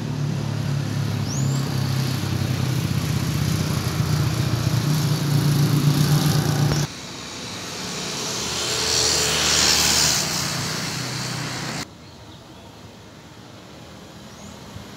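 Road traffic: a motor vehicle's engine runs steadily close by with a low hum. After a sudden cut, a vehicle passes, its tyre and engine noise swelling and fading. Near the end a quieter steady street background remains.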